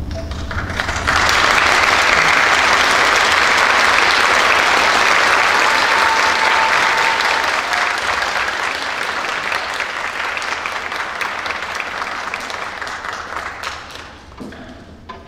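Audience applauding: the clapping starts suddenly about a second in, holds strong for several seconds, then gradually dies away near the end.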